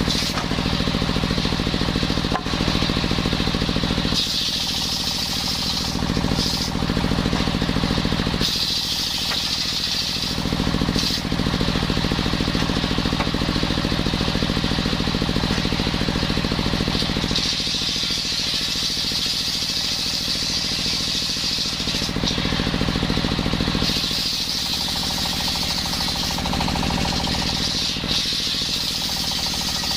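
Circular sawmill running and sawing coconut wood beams. A steady low drive hum runs under it, and a sharper high cutting noise comes and goes in several long passes as the blade goes through the wood and comes out again.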